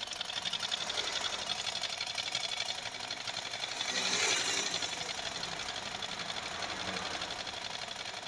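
Black Butterfly sewing machine stitching steadily, its needle and feed making a rapid, even clatter, with a brief louder swell about four seconds in. This is a test seam sewn with the stitch-length lever raised toward a finer stitch.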